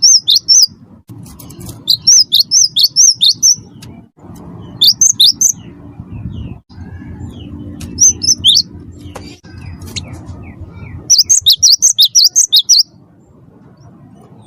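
Cinereous tit (gelatik batu, the 'wingko' type) singing in vigorous bursts of rapid, high, repeated notes: five phrases of about one to two seconds each, separated by short pauses, over a steady low rumble.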